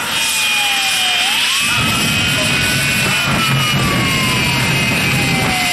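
Aftershock jet fire truck's Rolls-Royce jet engine running loud and steady with its afterburner lit, a rushing roar with a high whine. A siren wails slowly down and up over it.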